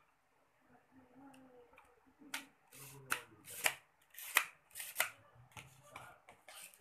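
Sheet of paper rustling and crinkling as it is rolled into a tube and handled, in about five short, sharp rustles over a few seconds.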